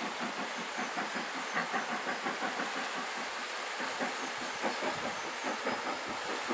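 Southern Railway S15 4-6-0 No. 825 working a train, its two-cylinder exhaust beating in a fast, even chuff of several beats a second over a steady rushing background.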